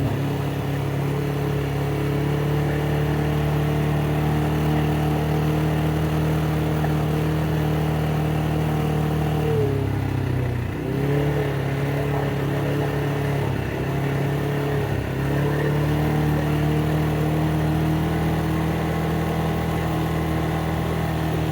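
ATV engine running at steady throttle. About halfway through the revs drop briefly and pick back up, with two smaller dips soon after as the throttle is eased and opened.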